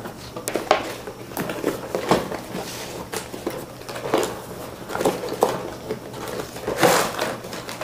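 Cardboard toy box being opened by hand: scattered rustles, scrapes and taps as the end flap is bent open and the inner cardboard tray slides out, with a louder rustle near the end.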